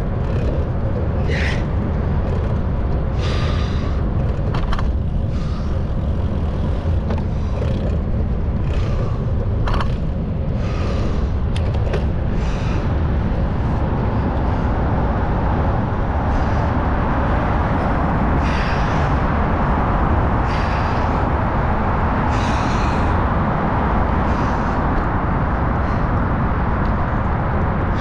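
Wind rumbling on a microphone carried along on a moving bicycle in city traffic, with scattered short clicks and rattles; a steadier hiss builds up about halfway through.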